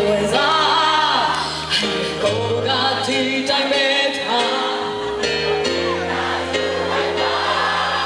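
A singer performing live with a band: a sung melody over held bass notes and drum hits.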